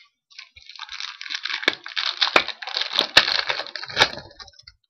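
A hockey card pack wrapper being crinkled and torn open by hand: a dense papery crackling with several sharp cracks.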